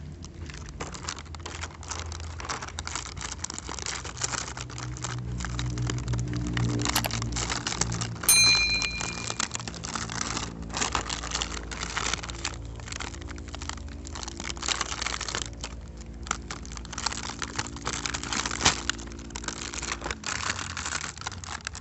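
Plastic blister packaging and its card backing crinkling and crackling as they are peeled open and handled, with small clicks from hard plastic toy trucks, over a steady low hum. A brief ringing ping about eight seconds in.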